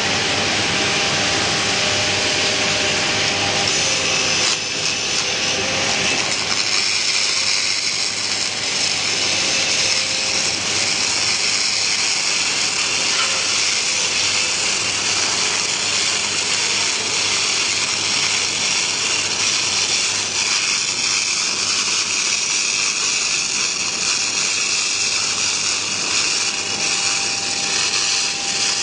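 Shielded metal arc (stick) welding on pipe: the arc gives a steady, unbroken crackling sizzle.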